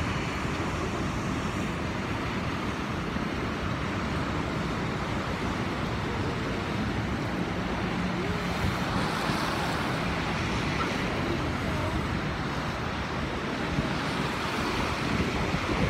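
Rough surf surging and breaking over basalt rocks, a steady roar of churning water with wind buffeting the microphone.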